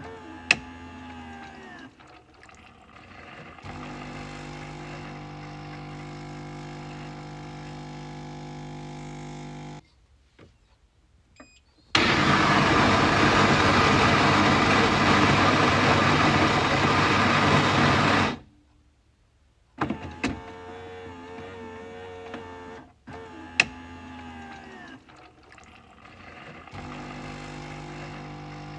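Coffee machine working through its cycle: a sharp click, a steady motor hum for several seconds, then a brief quiet gap. This is followed by a loud, even rushing noise lasting about six seconds that stops abruptly. More clicks follow, and the hum starts again near the end.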